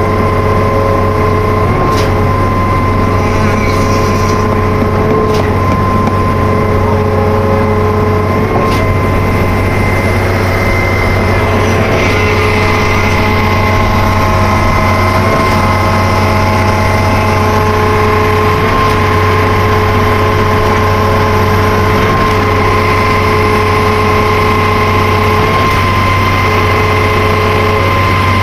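Truck-mounted concrete pump running steadily while it pumps concrete: a constant engine and hydraulic drone with a steady higher whine over it. A few faint knocks come about every three seconds in the first part.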